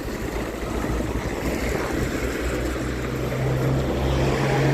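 Road traffic beside the street: a motor vehicle's engine hum growing louder over the last couple of seconds, over a steady wash of road noise.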